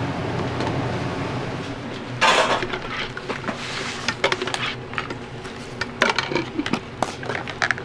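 Gas stove burner running with a steady low roar, cut by a short loud rush of noise about two seconds in; after that, a metal ladle clinks and knocks against an aluminium saucepan of soup.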